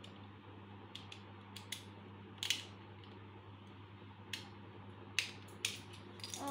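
Irregular sharp clicks and taps from a small die-cast toy car being handled and knocked on a hard stone floor, the loudest about two and a half seconds in. A steady low hum runs underneath.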